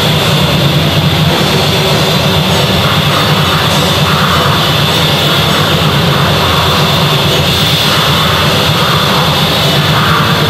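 Black metal band playing live: distorted electric guitar and drum kit merged into one dense, unbroken wall of noise, loud and distorted in the recording.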